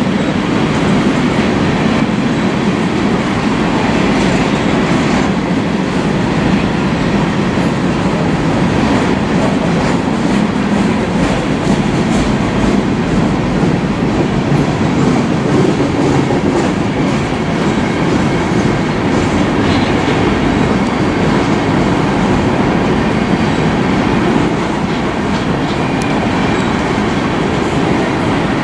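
Empty coal cars of a long freight train rolling past in a steady loud rumble of steel wheels on rail, with light clicking as the wheels cross rail joints.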